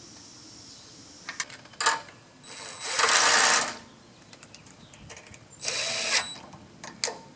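Cordless power driver spinning in two short bursts, the first about a second long and the loudest, the second shorter, with a few metallic clicks of parts being handled before and near the end.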